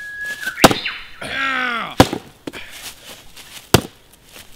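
Three sharp chopping strikes, about half a second in, at two seconds and near the end, from a man swinging a tool down at the ground. Between the first two strikes comes a man's drawn-out cry.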